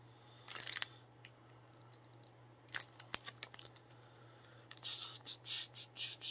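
Clear plastic wrapping crinkling and clicking in scattered short bursts as fingers pick at it, over a faint steady low hum.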